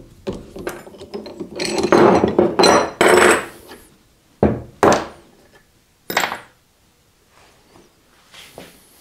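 Hand tools and metal motor parts handled on a wooden workbench while an electric motor is taken apart: small clicks and rattles, then a louder rough scraping stretch about two to three and a half seconds in. Three sharp knocks follow between about four and six seconds in, then quieter handling.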